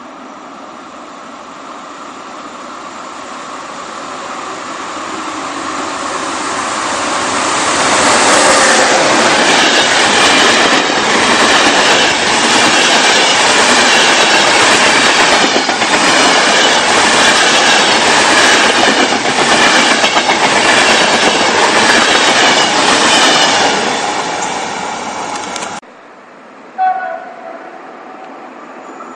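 Long passenger train approaching and passing at speed, its wheels clacking in a steady rhythm over the rail joints as the coaches go by, loudest in the middle, then fading until the sound cuts off abruptly. A brief high pitched toot follows near the end.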